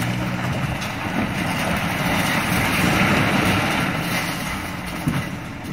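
Excavator demolishing a house: a long crash of collapsing walls and falling debris that swells to its loudest about halfway through and then eases, with the excavator's engine running underneath.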